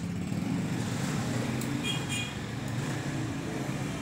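Road traffic noise: a steady low engine rumble, with two short high beeps about two seconds in.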